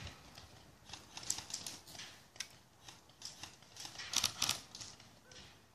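Airsoft guns firing: sharp, irregular clicking shots in short clusters, the loudest cluster about four seconds in.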